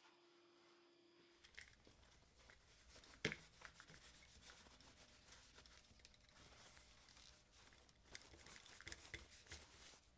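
Faint handling sounds of a tissue rubbing and crinkling over a small headset as it is wiped clean, with scattered light clicks and one sharper click about three seconds in.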